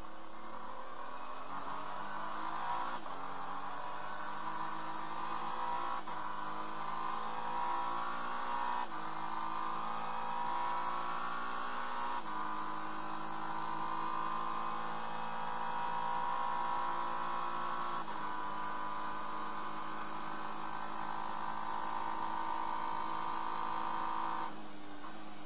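Acura NSX GT3 race car's twin-turbo V6 heard from inside the cockpit, accelerating hard through the gears with upshifts roughly every three seconds. It then holds a steady high-speed pitch flat out before dropping off sharply near the end as the driver lifts.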